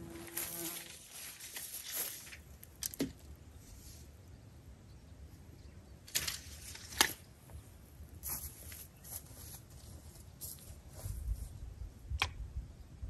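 Handling and movement noises from someone working at a wooden bench top on dry grass: a scattered series of sharp clicks and knocks with light rustling, and a low rumble near the end.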